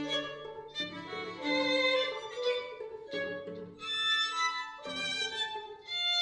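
String quartet playing a contemporary piece in short bowed phrases with brief pauses between them. The reverberation is generated live by a virtual room-acoustics system that changes the room sound from section to section.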